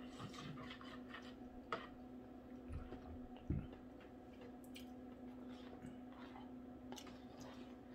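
Quiet eating at a meal of grilled cheese sandwich and tomato soup: faint mouth and utensil clicks and ticks, with one soft thump about three and a half seconds in, over a steady low electrical hum.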